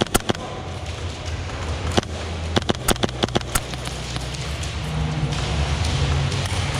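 Airsoft gunfire: scattered sharp cracks, a few at the start and one about two seconds in, then a quick uneven string of about eight half a second later, over a steady low hum.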